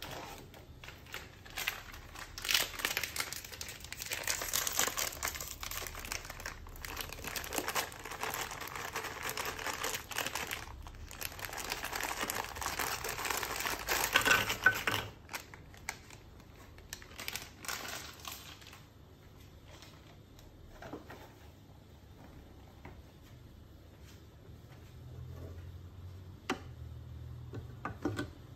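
Crisp crinkling and crackling as crackers are handled and dropped into a Thermomix TM6's steel mixing bowl, dense for about fifteen seconds and then thinning out. Near the end come two sharp clicks as the lid is fitted onto the bowl.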